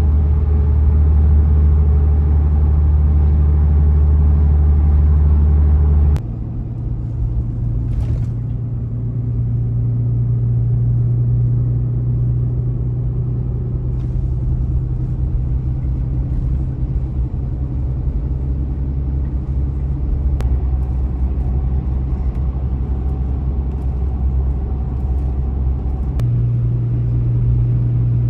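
Steady low drone of a car driving, heard from inside the cabin: engine and road noise. Its pitch shifts suddenly about six seconds in and again near the end.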